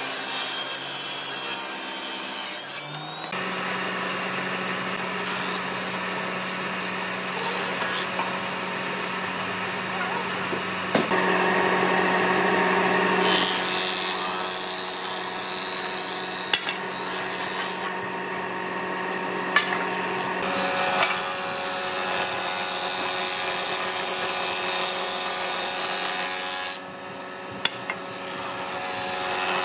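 Woodworking machines cutting old reclaimed wood: first a table saw ripping a board, then a combination planer-thicknesser running with a steady motor hum as boards feed through its thicknessing bed. The sound changes abruptly several times.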